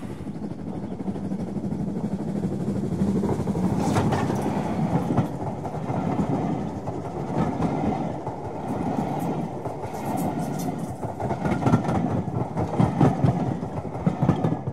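A train running on rails: a steady rumble with occasional clicks of the wheels going over rail joints.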